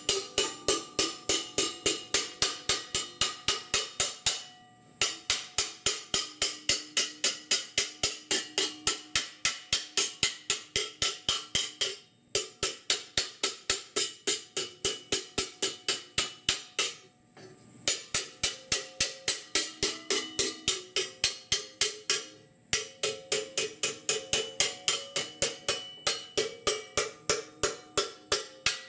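Hand hammer striking sheet steel held over a steel pipe forming fixture, shaping it with rapid, even blows that ring, about four to five a second. The hammering runs in bursts, stopping briefly four times.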